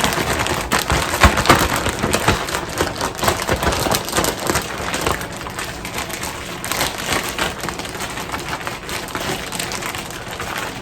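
Chicken wings being shaken and tossed in a bag of flour to coat them: the bag rustles and crinkles with a dense run of small crackles and soft knocks, busiest in the first couple of seconds.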